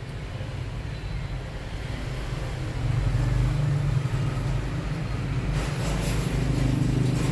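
Low rumble of a running motor-vehicle engine, growing louder about three seconds in, with a few faint clicks near the end.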